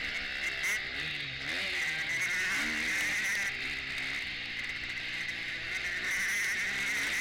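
KTM 250 four-stroke motocross bike's engine heard from on the bike, revving up and falling back again and again as the throttle is worked over the dirt track, over a steady hiss.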